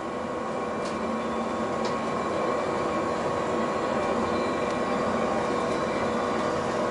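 Steady hum of a stationary 117 series electric train's onboard equipment heard inside the passenger car, with several steady whining tones, growing slowly a little louder, and a few faint clicks.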